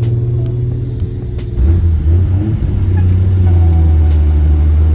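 1950 Hudson Commodore's engine running while the car drives, heard from inside the cabin. About one and a half seconds in, the engine note drops in pitch and grows louder, then holds steady.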